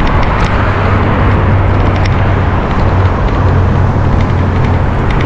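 Steady rush of wind on the microphone and road noise from riding a bicycle beside passing car traffic.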